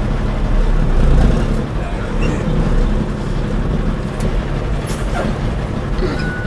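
Heavy truck's engine running under way, heard from inside the cab along with road rumble. It swells about a second in, and there is a short click about five seconds in.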